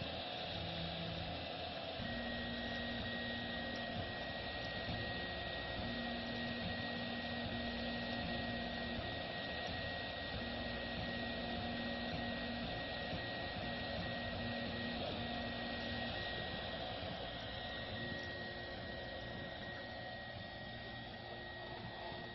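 RepRap Prusa i3 3D printer running a print: its stepper motors hum in short spells of changing pitch as the head moves, over a steady mechanical noise. A steady high tone comes in about two seconds in.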